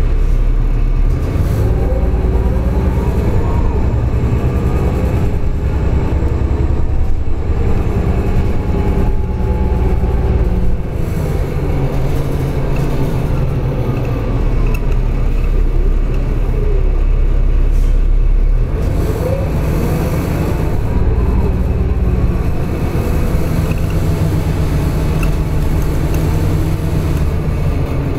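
Cabin sound of a New Flyer D40-LF diesel city bus under way: engine and drivetrain running with a steady low rumble and road noise, the engine note rising as the bus speeds up, most clearly a little past halfway through.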